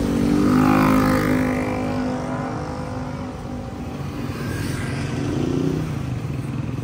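Motor scooters and motorcycles passing close in street traffic: the loudest goes by about a second in, its engine pitch dropping as it passes, and another passes around five seconds in, over a steady rumble of traffic.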